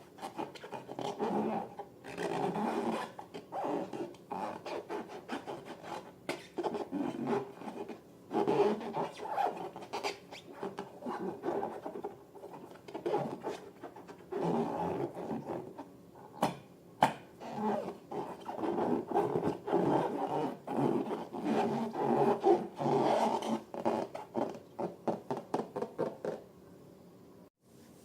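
Rubber balloons being handled and rubbed: continuous scratchy rubbing dotted with sharp clicks and snaps, which dies away shortly before the end.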